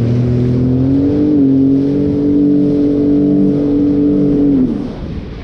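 Jet ski engine throttled up at the start and held at a steady high rev, pitch climbing a little about a second in, then backing off and falling in pitch near the end.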